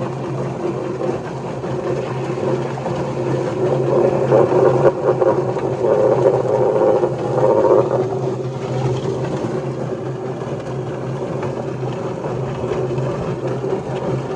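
YardBird electric chicken plucker running: a steady motor hum under the rough churning of a chicken tumbling against the rubber plucking fingers on the spinning plate, with water spraying into the tub. The churning grows louder from about four to eight seconds in.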